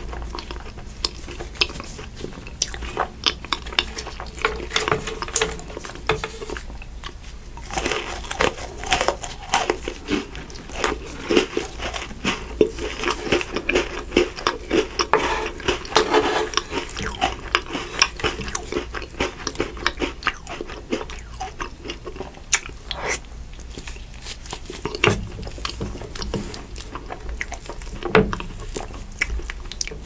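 Close-miked eating of chocolate ice cream: crunchy bites and chewing with many small wet mouth clicks, thickest through the middle.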